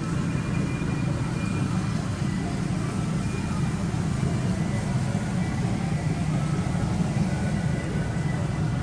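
Steady low rumble of outdoor background noise, with faint thin high tones above it.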